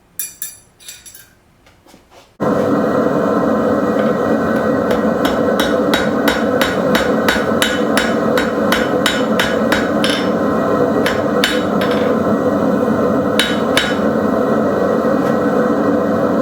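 Blacksmith's hammer striking metal on an anvil, forging the prongs: a quick run of blows, about three a second, then a few scattered blows. Under them a loud steady rushing noise starts suddenly a couple of seconds in, after a few light metal clinks.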